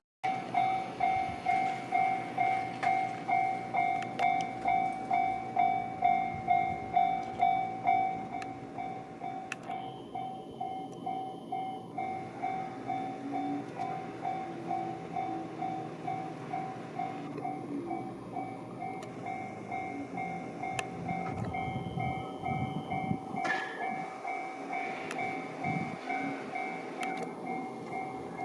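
Japanese railway level-crossing alarm ringing: an electronic bell chiming steadily at about two to three strokes a second. It is louder for the first eight seconds and softer after, with a train rumbling past in the second half.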